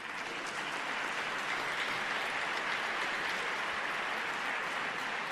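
Audience applauding steadily, the clapping swelling up just as it begins and then holding even.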